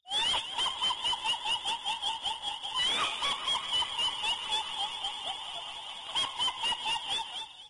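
A dense run of rapid, short, high-pitched chirping notes, several a second and pulsing in loudness, cut in and out abruptly as an added sound effect.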